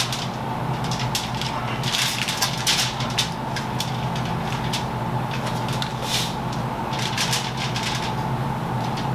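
Sharp knife scoring the skin of a whole scaled red snapper lying on aluminium foil: irregular crackly slicing and scraping, with the foil crinkling under the fish, over a steady low hum.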